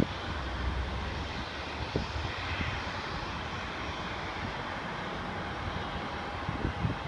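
Airliner flying over an airport, its engines heard as a steady rushing noise, with a faint whine that swells and fades about two to three seconds in. A few short low thumps sound around two seconds in and again near the end.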